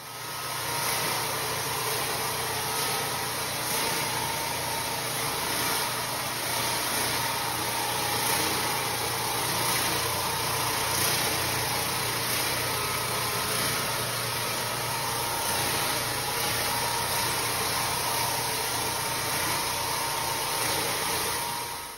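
Electric XL Pro floor machine running steadily, its scrubbing pad working over a wet, soapy tile floor: an even motor hum mixed with scrubbing noise.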